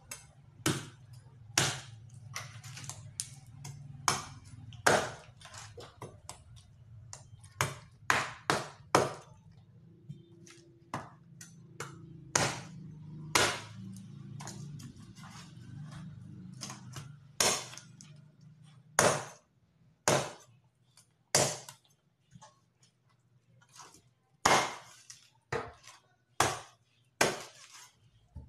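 Meat cleaver chopping raw chicken on a wooden cutting board: a long series of sharp, irregular chops, some in quick runs of two or three. A low steady hum sits underneath and stops about two-thirds of the way through.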